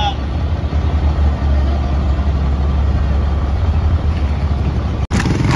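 Engine of a converted former American school bus running as the bus drives slowly past at close range: a steady low rumble, with a brief dropout near the end.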